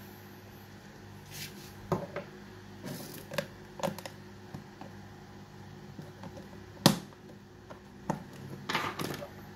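Clear plastic box and lid handled by hand: a run of light plastic clicks and taps, with one sharp, louder click about seven seconds in and a brief rustle near the end.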